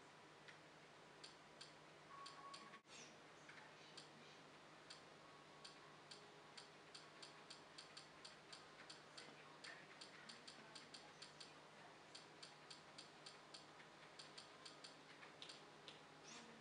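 Faint, quick ticks as a media-center menu list is scrolled item by item: sparse at first, then about three a second.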